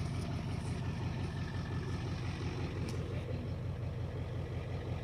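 Truck engine idling with a steady, low, evenly pulsing rumble.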